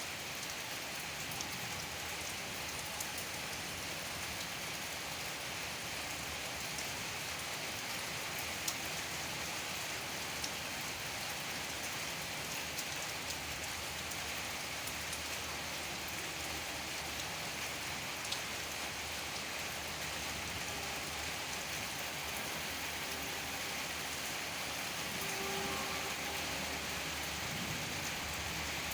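Gentle rain falling steadily, an even hiss with a few louder single drops ticking now and then.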